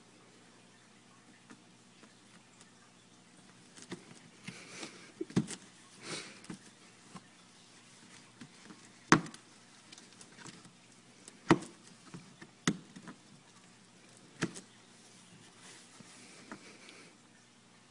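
Cat pawing and scratching at a torn hole in the top of a cardboard box, heard from inside the box: scattered scratching of cardboard and several sharp knocks, the loudest about halfway through.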